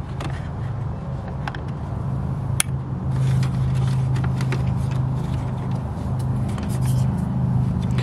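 Steady low hum of a Chevy Silverado pickup running, heard from inside the cab, with a few light plastic clicks as the wiring connector is plugged into the new headlight switch and the switch is handled into the dash.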